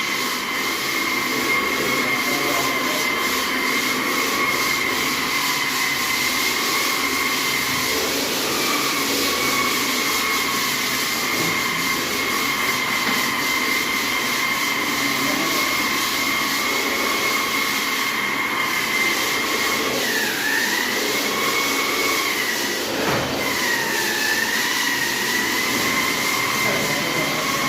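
Electric wall sander running, a steady high motor whine over a sanding hiss; the whine dips in pitch briefly twice in the last third.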